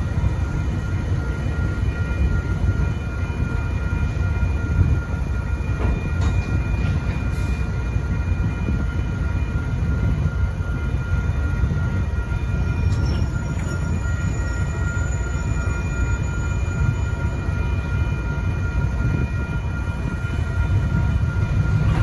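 The 12-cylinder EMD diesel engines of a pair of SW1500 switcher locomotives rumble steadily as they slowly pull a covered hopper car across a grade crossing. The crossing's electronic bells ring steadily over the engine noise.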